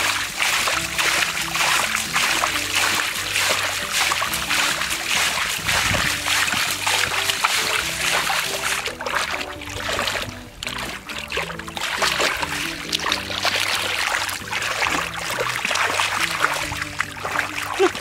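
Background music over wet mud and water splashing as hands scoop and fling mud in a shallow, drained pond.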